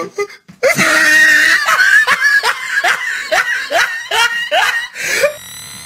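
A person laughing loudly in a quick run of short, falling 'ha's, about two or three a second. Near the end, faint high rising whistle-like tones come in.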